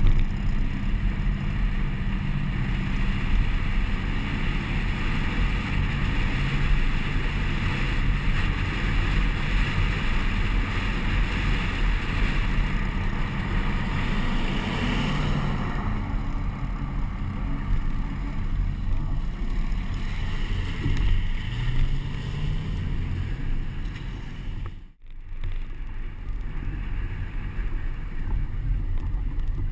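Wind rushing over a camera mounted on the outside of a moving pickup truck, with the truck's engine and tyre noise rumbling underneath. The sound cuts out briefly about 25 seconds in, then the driving noise resumes.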